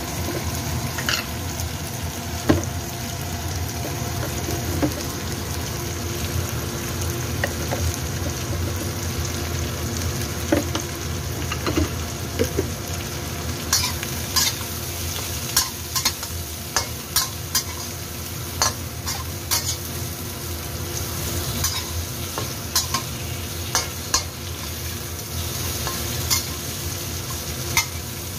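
Shrimp sizzling in hot oil with garlic and ginger in a stainless steel wok, a steady frying sound. A metal utensil scrapes and clicks against the wok as the shrimp are turned, the clicks coming often from about halfway through.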